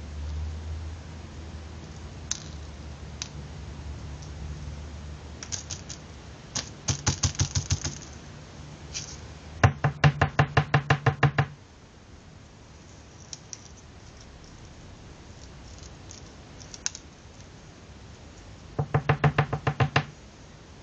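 Three bursts of rapid knocking, about six knocks a second, lasting a second or two each: one about seven seconds in, a louder one just under ten seconds in, and one near the end, with a few single clicks between.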